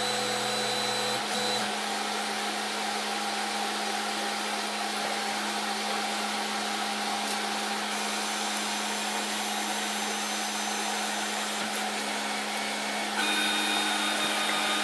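Snapmaker 2.0 3D printer running with a steady whir of its fans and a constant hum. About 13 seconds in, a higher stepper-motor whine joins as the heated bed moves while the machine homes its axes.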